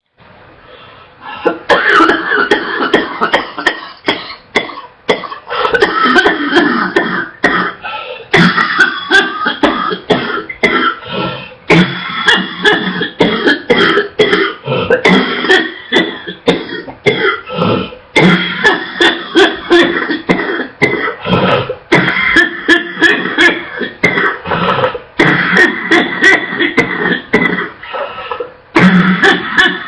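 A woman coughing non-stop in rapid fits of harsh, barking, wet coughs, barely catching her breath in short pauses between them. The coughing starts about a second and a half in.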